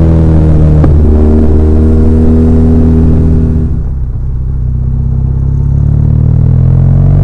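BMW R1200R's air/oil-cooled boxer twin running under way at steady revs, with a short click about a second in; around four seconds in the throttle closes and the engine falls quieter, then the revs climb steadily as it accelerates again near the end.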